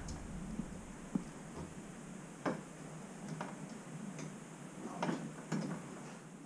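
A few faint, irregularly spaced ticks and light knocks, about six in all.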